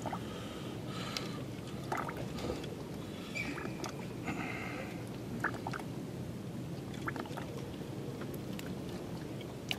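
Water lapping and gurgling against the hull of a small fishing boat, a steady low wash, with a few faint clicks and knocks from handling.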